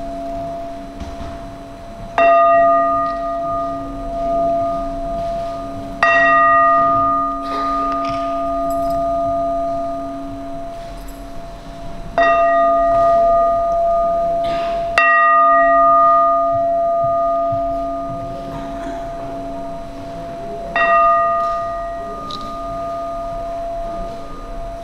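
A metal bell struck five times at uneven intervals a few seconds apart. Each strike rings on, so the tones overlap into one continuous sustained ring.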